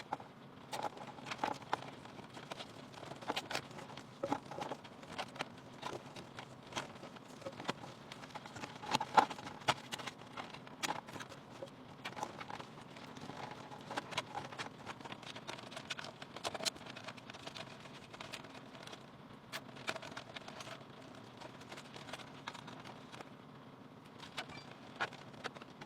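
Irregular light clicks, taps and small knocks of computer parts being handled and fitted during a PC build, with one louder knock about nine seconds in.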